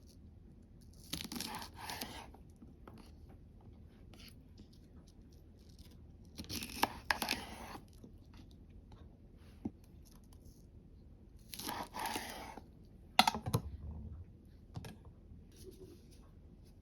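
Crisp raw vegetables being prepared by hand: three bursts of tearing and crunching, each about a second long, then a few sharp knocks a little after the third.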